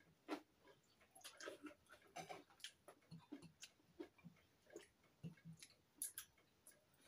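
Faint eating and drinking sounds at the table: chewing and mouth noises with many small clicks, and two sharper clicks about six seconds in.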